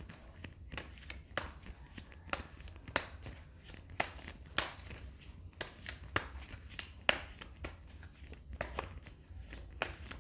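Tarot cards being handled and shuffled: a string of irregular light clicks and flicks, with one sharper snap about seven seconds in.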